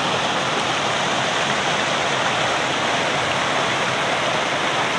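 Waterfall on a river, water pouring in a steady, even rush with no change in level.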